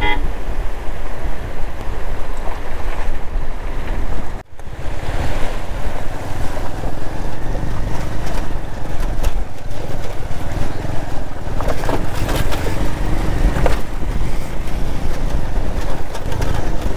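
Motorcycle engine running under way while its tyres churn and splash through a shallow stream running over a rocky road, with wind buffeting the microphone.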